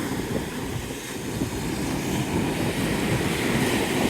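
Strong wind rumbling on the microphone over the steady wash of big breaking surf.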